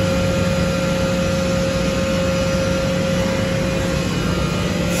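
Woodworking machinery running steadily: a constant whirring noise with a low hum and a steady higher tone that stops about four seconds in.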